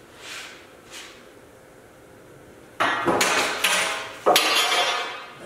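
Two ringing metallic clanks from a length of steel EMT conduit being handled against the floor and wall, the first about three seconds in and the second a second and a half later. Each strike rings on and fades over about a second.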